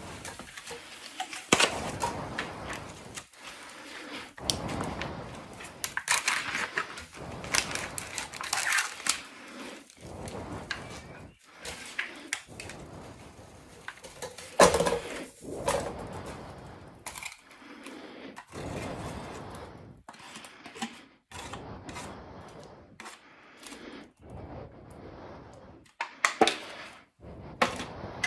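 Camping cookset pots, lids and a folding spork being handled, with irregular clinks, knocks and scrapes as food is scraped from a bowl into a pot.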